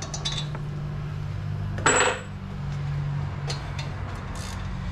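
Metal clinks and clicks of a wrench and socket on a vehicle's hub-assembly bolts as they are broken loose, with one sharp, ringing metal clank about two seconds in. A steady low hum runs underneath.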